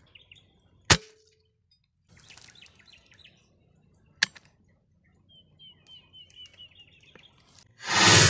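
A sharp rifle shot about a second in and another sharp crack about four seconds in, with small birds chirping in short high runs between and after them. A loud rush of noise comes near the end.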